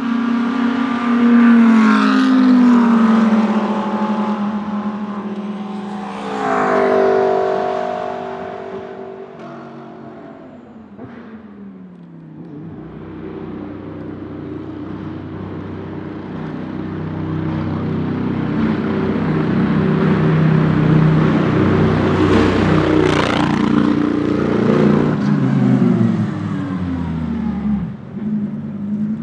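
Audi R8 LMS GT3 Evo II race cars with the 5.2-litre V10 passing by at speed: two go past one after the other in the first seven seconds, the engine note dropping in pitch as each passes. Then another approaches, growing steadily louder over several seconds, and passes about 23 seconds in with its pitch falling away.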